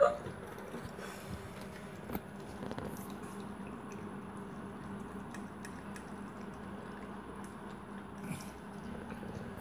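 Yellow Labrador puppy eating soft wet food from a stainless steel bowl: wet, squishy chewing and lapping with small irregular clicks, and one sharp clink right at the start.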